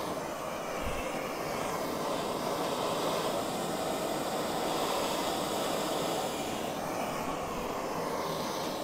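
Plumbing torch burning steadily with a constant rushing hiss as its flame heats a copper pipe fitting to sweat a solder joint.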